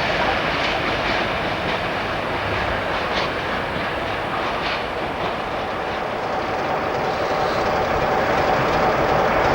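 Train rolling past with a steady rumble of wagon wheels on the rails and a few faint clicks over the rail joints. A steady tone joins about six seconds in.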